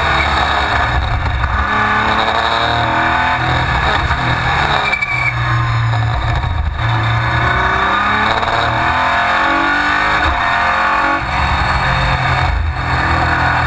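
Sports-prototype race car's engine heard from the cockpit at speed, repeatedly rising in pitch under acceleration, with brief breaks at the gearshifts, over constant wind and road noise.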